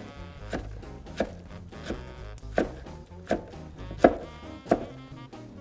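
Chef's knife chopping blanched, wrung-out escarole on a wooden cutting board: a steady run of about eight sharp knocks, roughly one every two-thirds of a second.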